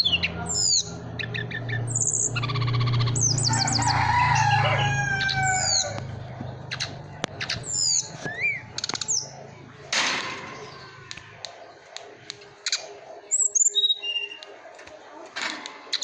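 Small songbird calling: quick runs of high, descending chirps and trills, repeated in bouts. A low steady hum sits under the calls for the first two thirds or so, then fades.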